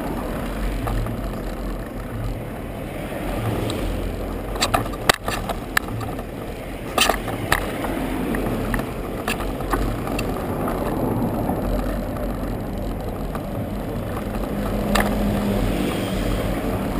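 Bicycle rolling over paving stones, heard through a ride-mounted camera: a steady rumble of tyres and wind on the microphone, with a cluster of sharp clicks and knocks from the bike about a third of the way in and another near the end.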